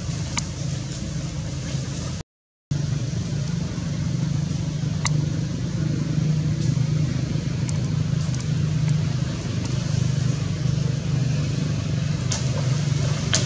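An engine running steadily off-screen, a low, even hum, with a few short sharp clicks on top. The sound cuts out completely for about half a second about two seconds in.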